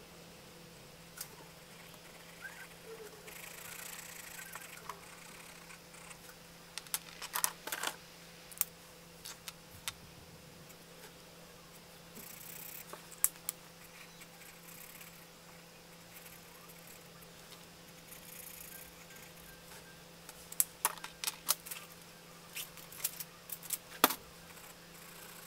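Felt-tip colouring markers handled over a sketchbook: soft strokes of tips on paper, with sharp clicks and taps as markers are picked up and put down, heaviest in clusters about a third of the way in and near the end. A steady low hum runs underneath.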